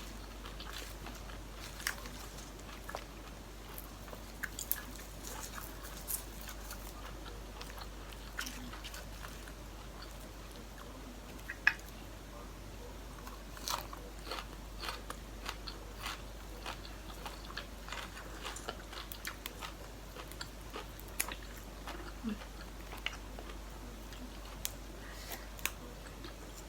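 Close eating sounds of a person chewing and crunching food, with irregular sharp clicks and snaps scattered throughout.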